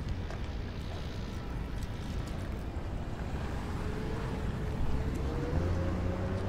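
Wind rumbling on the microphone outdoors. From about four seconds in, a faint distant motor hum rises slowly in pitch.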